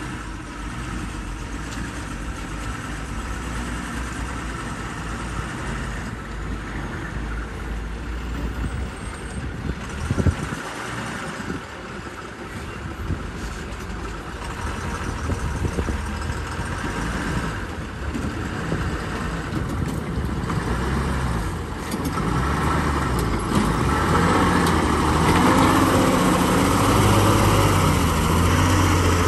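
Diesel engines of heavy multi-axle Tata load trucks running as they crawl along a rutted mud road, growing louder about three quarters of the way through as a truck comes close. A brief sharp knock about ten seconds in.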